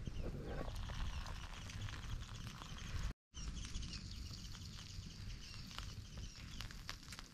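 Wood fire crackling with many sharp pops, with a light hiss of food sizzling and steaming on the aluminium grill plate and mess tin above it. The sound breaks off for a moment about three seconds in.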